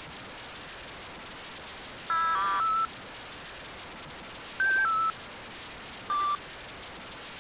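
Telephone-like electronic beeps over a steady hiss of static: a short run of stepping two-tone beeps about two seconds in, a pair of tones falling in pitch about four and a half seconds in, and one short beep near the end.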